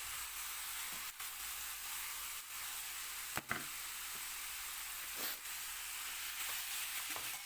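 Masala of onion, tomato and ginger-garlic paste frying with the chicken in a hot pan: a steady sizzle, with a few knocks and scrapes of the spoon stirring.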